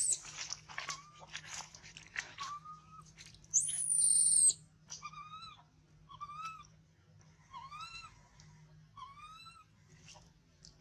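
Infant macaque crying: scratchy rustling and crunching noises at first, then one loud, shrill, high squeal about three and a half seconds in, followed by a string of short rising-and-falling whimpering calls, about one a second.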